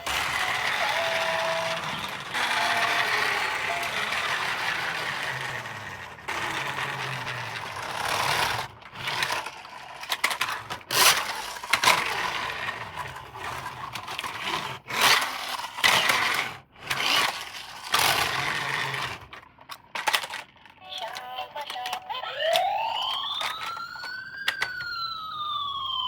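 Toy vehicle electronic sound effects: a stretch of noise with short beeps, then a quick run of short, sharp sounds. Near the end comes an electronic siren wail that rises and then falls.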